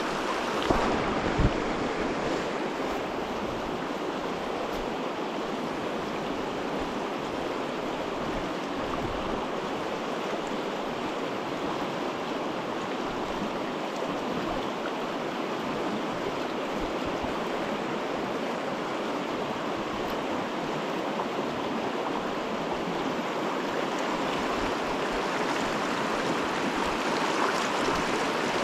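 Fast, shallow river water rushing steadily over a rocky rapid, heard close at water level, with two short knocks about a second in.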